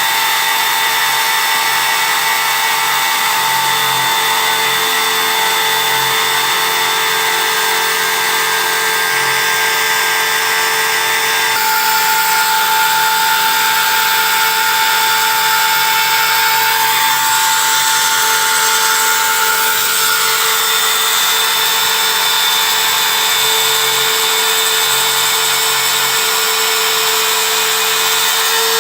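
CNC engraving machine running as it cuts: a steady whine over a high hiss, its pitch shifting a few times as it works.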